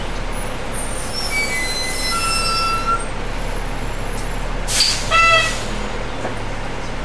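Bus interior with the engine humming steadily; from about a second in the brakes squeal in several high tones. Just before the five-second mark the air brakes give a short hiss, followed at once by a short electronic beep.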